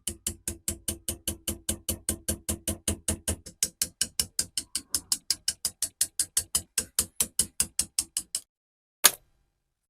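Rapid, evenly spaced sharp clicking, about five clicks a second, which stops abruptly. A single louder click follows about a second later.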